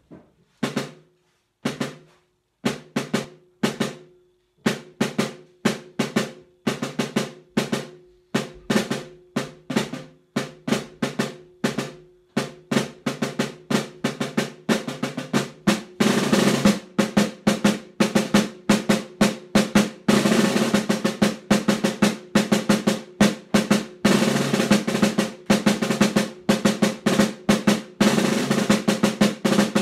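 Snare drum played with sticks as a solo piece. At first there are separate strokes and short figures with gaps between them. These grow denser and louder until, from about halfway, rolls and fast passages run almost without a break.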